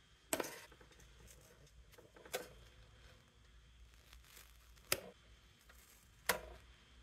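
Adhesive protective tape being peeled off a new toaster's glossy plastic body: four short, sharp rips spaced about two seconds apart.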